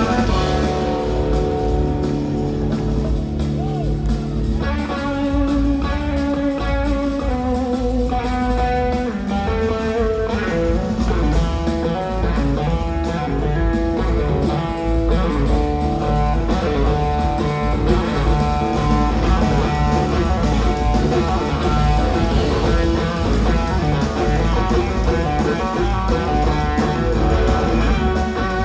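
Live band playing an instrumental blues-rock jam: an electric slide guitar takes the lead over bass guitar and drums. The guitar holds long, gliding notes at first, then moves into quicker runs from about five seconds in.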